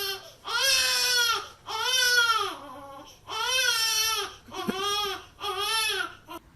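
A high voice crying out in five drawn-out wails, each about a second long and rising then falling in pitch.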